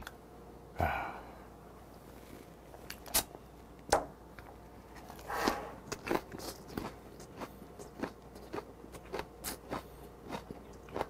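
Close-up chewing of a mouthful wrapped in raw onion: a few sharp crisp crunches, then a run of softer crunching chews about twice a second.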